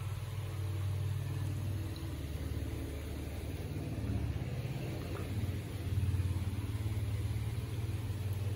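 A steady low mechanical rumble, swelling a little around four and six seconds in.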